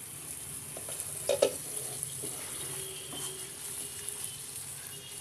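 Thick yogurt-and-onion curry with eggplant sizzling in a non-stick frying pan as a spatula stirs and turns it, its water almost cooked off. A short clatter of the spatula against the pan comes about a second and a half in.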